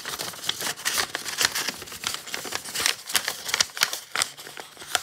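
Sheets of printer paper rustling and crinkling as they are folded and handled, with many quick sharp crackles.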